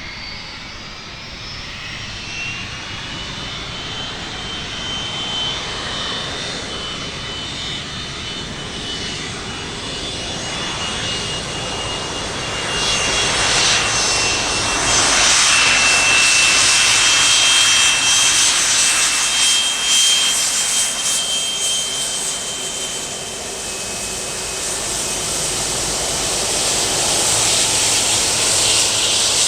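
Jet airliner's engines running as the aircraft passes, a rushing roar with a high whine, swelling to its loudest about halfway through and then easing.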